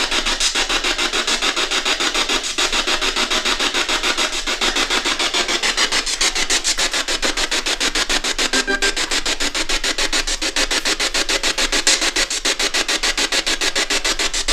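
Ghost box (spirit box) sweeping through radio stations: a continuous hiss of static chopped into rapid, even pulses as the tuner scans.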